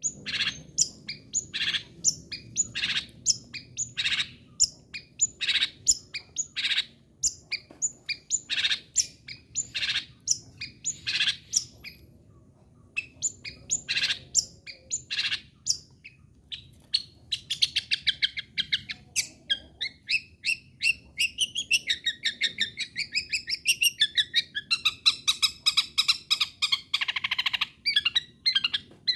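Long-tailed shrike (cendet) singing: a string of sharp, harsh calls about two a second, a short pause, then from about halfway a fast, varied chattering song that runs on.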